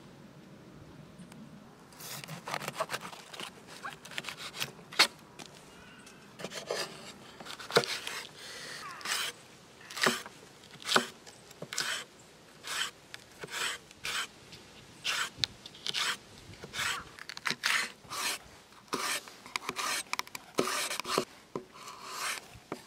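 Knife slicing bell peppers into strips on a wooden cutting board. Starting about two seconds in, each cut gives a short, sharp stroke as the blade goes through the pepper and hits the board, roughly one or two a second, with some scraping in between.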